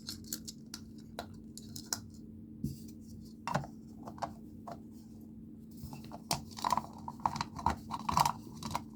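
Hard plastic building-toy parts of a Mega Construx dragon figure clicking and clacking as they are handled and snapped together. Scattered taps at first, then a quicker run of clicks over the last few seconds.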